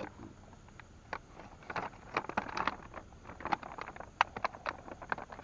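Hands handling small gear in the boat: irregular clicks and light knocks, with a little rustling about two to three seconds in.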